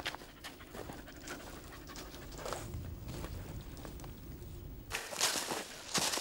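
A dog panting, with scattered crackles and rustles of dry leaves and twigs. The breathy sounds grow louder about five seconds in.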